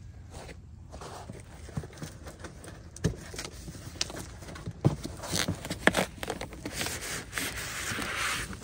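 A cardboard box being handled and opened, with scattered knocks and scrapes, then a longer scraping rustle near the end as a bubble-wrapped solar panel slides out of it.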